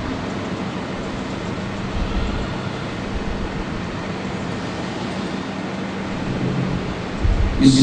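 Steady hiss and low hum of the room and public-address system while the Quran reciter pauses between phrases. Near the end comes a sharp intake of breath close to the microphone, just before the recitation resumes.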